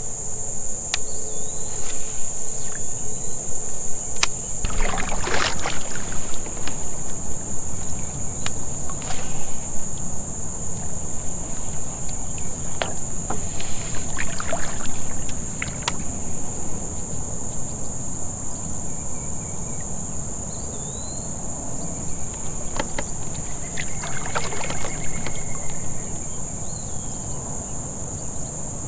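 Steady high-pitched drone of a summer insect chorus over a low rumble, with a few brief noises scattered through it.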